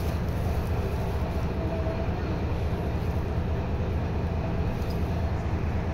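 Diesel railcar engine idling with a steady low hum while the car stands at the platform with its doors open.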